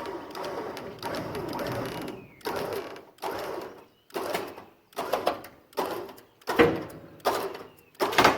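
12,000-pound winch motor pulling against a seized square baler: one run of about two seconds, then about eight short bumps in quick succession, roughly one every 0.8 seconds, as it strains to break the locked-up baler loose.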